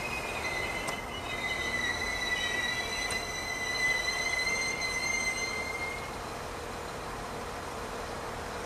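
Irish Rail 22000 Class diesel multiple unit squealing at the platform: a steady high-pitched squeal with overtones, wavering slightly in pitch, that stops about six seconds in. A steady low hum from the train remains after it.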